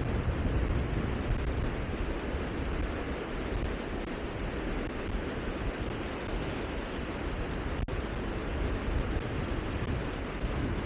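Steady rushing outdoor noise with an uneven low rumble, broken only by a split-second dropout about eight seconds in.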